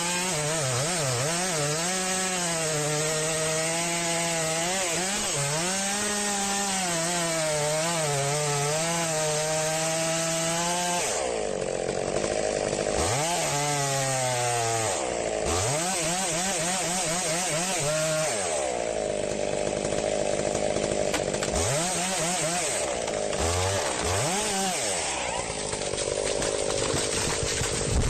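Two-stroke chainsaw running steadily under load with a slightly wavering pitch, then, partway through, revved up and down over and over.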